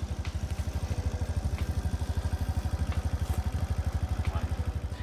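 SYM Orbit 50cc scooter's small single-cylinder engine idling with a fast, even putter.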